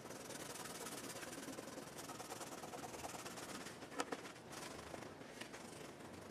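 Paper towel rubbing chrome polish onto the pitted chrome trim of a quarter-window frame, a faint scrubbing, with a single sharp click about four seconds in.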